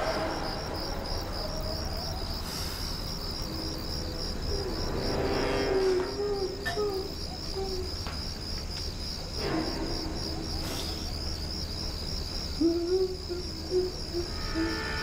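Crickets chirping steadily in a rapid, even pulse, with a few low wavering tones about five seconds in and again near the end.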